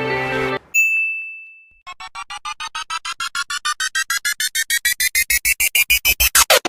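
Intro music cuts off and a single electronic ding rings briefly. Then a synthesizer riser sound effect plays: a pulsing tone, about seven pulses a second, rising steadily in pitch and growing louder.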